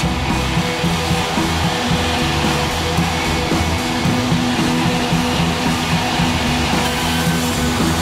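Background music, with a run of steady pitched notes changing from one to the next.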